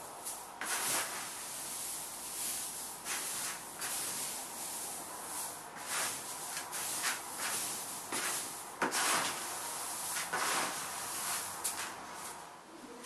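Dry whole malted grain and rice hulls in a plastic bucket rustling as a hand scoops them up and lets them pour back, in a run of short hissing rushes.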